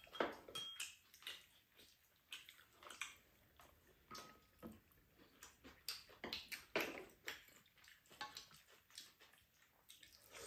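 Faint, irregular eating sounds: chewing, lip smacks and slurps of soup from wooden spoons, with soft clicks of wooden spoons and chopsticks against the bowls and pan.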